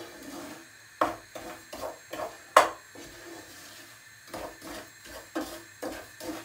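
Wooden spatula scraping round the bottom of a pot as it stirs semolina roasting in butter for halva, in quick strokes of about three a second that pause for about a second in the middle. One sharp knock about two and a half seconds in is the loudest sound.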